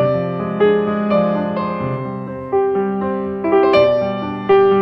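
Background piano music: a gentle melody of single notes and chords, each struck and left to fade.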